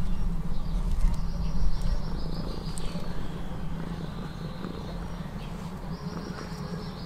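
Outdoor ambience with a low steady rumble, loudest in the first two seconds, and a songbird's high, rapidly pulsed trill that falls in pitch, heard twice, about two seconds each.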